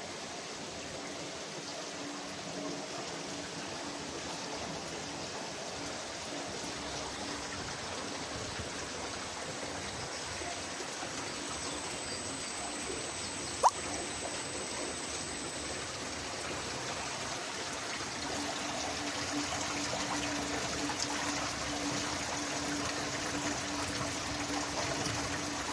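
Water trickling and running steadily in a sludge dewatering screw press. There is one sharp click about halfway through, and a low steady hum comes in about two-thirds of the way through.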